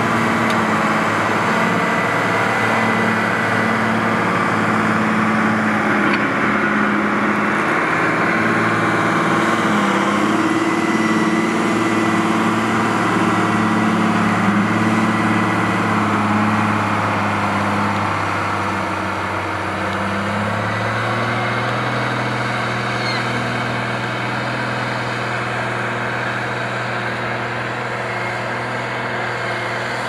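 Diesel engine of a large International Harvester tractor running steadily under load while pulling a multi-bottom moldboard plow through the soil. It grows quieter past the middle as the tractor moves away, with a slight change in the engine note.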